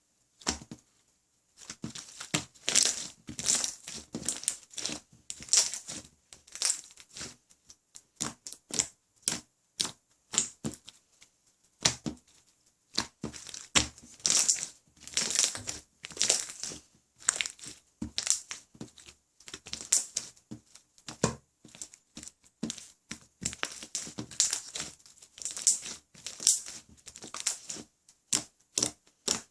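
Clear jiggly slime being squished and pressed by hand, giving irregular sticky crackles and pops in quick succession, with a brief pause about twelve seconds in.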